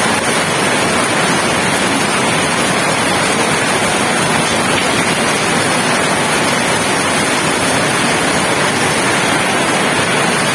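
Heavy rain falling steadily, a loud, dense, even hiss.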